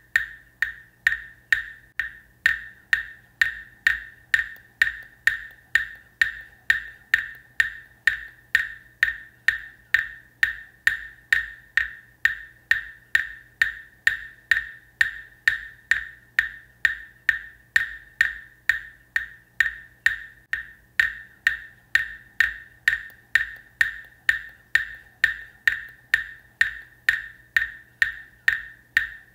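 A Buddhist wooden fish (muyu) struck at a steady, even pace of about two strikes a second. Each stroke is a hollow, pitched knock with a short ring. It is the metronome beat that keeps time for reciting the Buddha's name, one strike per recitation.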